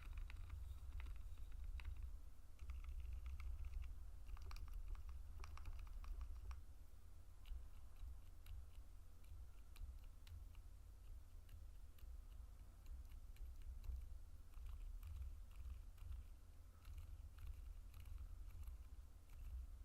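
Typing on a gasket-mounted Qwertykeys Neo65 keyboard with TTC Frozen Silent White v2 silent linear switches on a PC plate: soft, muted keystrokes, busy for the first six seconds or so and then sparser. A steady low hum runs underneath.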